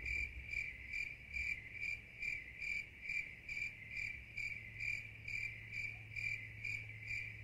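Crickets chirping in a steady, even rhythm: a high trill pulsing about twice a second, with a faint low hum underneath.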